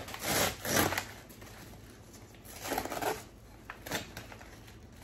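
Kraft paper wrapping rustling and crinkling in a few short bursts as a potted plant is pulled out of its paper bag, loudest near the start.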